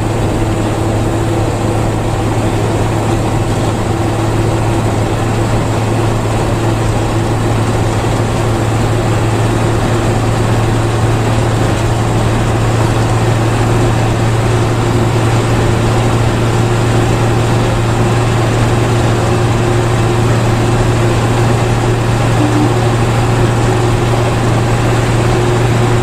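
Intercity bus running steadily along the highway: a constant low engine drone with road noise.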